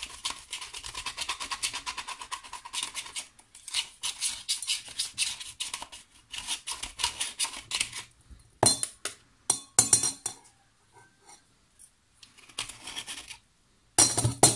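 Screwdriver scraping and chipping at solid coolant additive (DCA4) packed tight inside a steel filter canister, in rapid scratching strokes. Around the middle come a few separate sharp clicks and a quieter pause, and the scraping starts again near the end.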